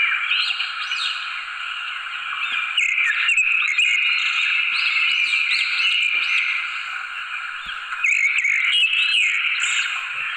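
A dense chorus of small animal calls: many overlapping short chirps, each rising in pitch, running without a break and swelling and easing every few seconds.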